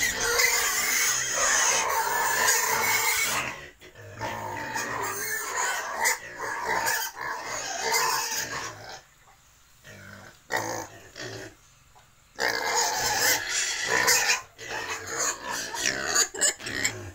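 Pigs in a pen calling loudly and almost without a break, with two short lulls about nine and eleven seconds in.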